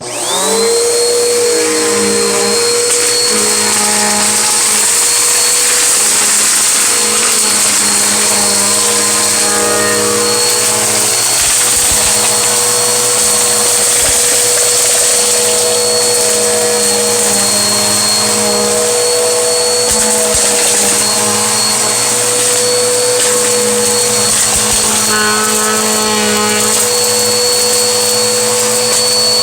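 Vacuum cleaner switched on, its motor whine rising for about a second, then running steadily on medium power. Faint crunches and clicks come through now and then as it sucks up road salt and grit.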